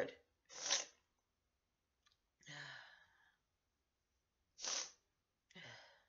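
A congested woman's breathing noises. There are two short, sharp breath bursts, about half a second in and near five seconds, and between and after them two longer breathy sighs that each start with a brief voiced catch.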